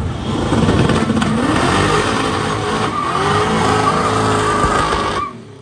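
Car doing a burnout: the engine revs hard with the rear tyres spinning and squealing, and a steady high tyre squeal holds over the last couple of seconds before the sound cuts off abruptly.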